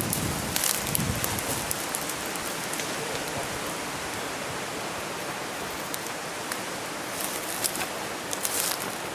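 Footsteps and brush rustling through forest undergrowth, with leaves and twigs crackling now and then, a few times near the end, over a steady hiss.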